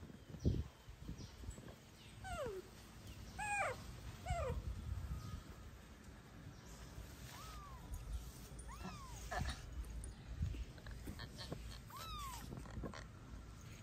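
Kittens mewing: about half a dozen short, high calls, some falling in pitch and some rising then falling, spaced a second or more apart. There are a few soft low knocks near the start.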